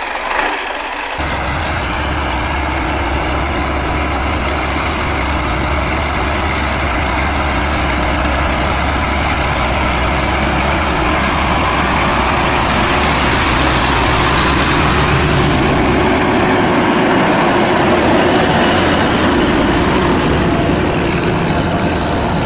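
Heavy farm tractor engines running steadily under load, a dense engine noise with a strong low hum. The sound shifts abruptly about a second in and again at about sixteen seconds, as one tractor's engine gives way to another.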